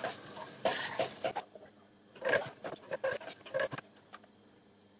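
Jets of acetone squirting from syringe needles of a foot-pedal-driven cleaning station into a plastic tub of acetone, splashing in several short spurts before dying down near the end.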